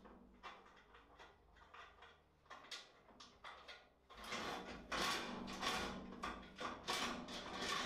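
Aluminium extrusion rail of a table saw's sliding-table kit being fitted onto its mounting bolts: small metal clicks and taps, then from about four seconds in a run of louder scraping, sliding strokes as the rail is worked along on its nuts.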